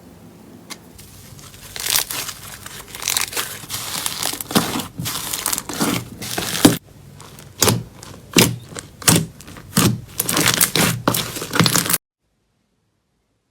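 Slime being squeezed and pressed by hand, crackling and popping; from about halfway through it comes in separate squeezes roughly twice a second, and it cuts off suddenly near the end.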